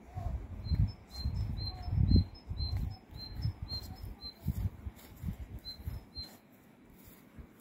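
A small bird giving a quick run of short high chirps, about three a second, pausing about four seconds in and then chirping twice more. Under it, for most of the time, low rumbling thumps of wind or handling on the microphone, the loudest sound.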